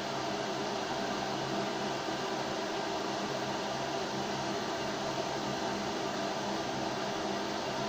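Ladomir AA113 glass electric kettle heating water: a steady rushing hiss with a faint low hum.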